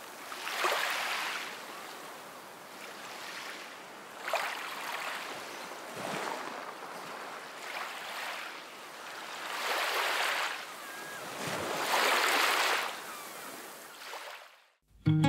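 Sea waves breaking and washing up on a shore, the rush of surf swelling and falling away about five times.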